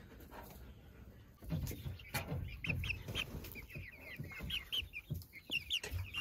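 Young chickens making short, high peeping calls, several a second from about two seconds in, with soft low bumps as a bird pokes at the microphone.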